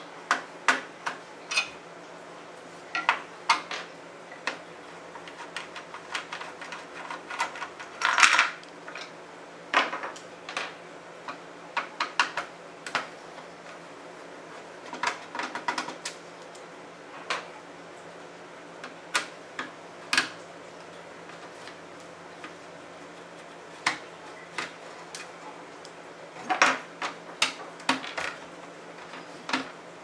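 Irregular small metallic clicks and clinks of a screwdriver and Phillips-head screws being taken out of the motherboard in a Dell Optiplex 745 small-form-factor steel case, with a busier cluster about eight seconds in.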